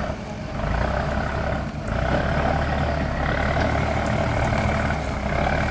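Heavy diesel engine running steadily under load, with a brief dip about two seconds in.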